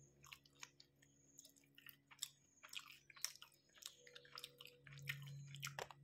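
Faint close-up chewing of a mouthful of sausage-and-cheese burrito: irregular soft mouth clicks, a few a second.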